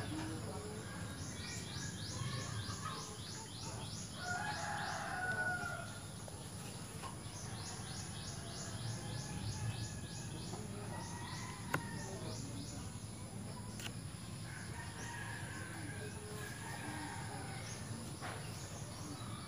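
Rooster crowing, the clearest crow about four to six seconds in and a fainter one near the end.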